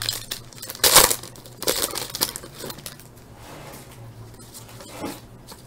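Foil wrapper of a Bowman Chrome baseball card pack crinkling as it is torn open by hand, with one loud rustle about a second in and softer rustles after.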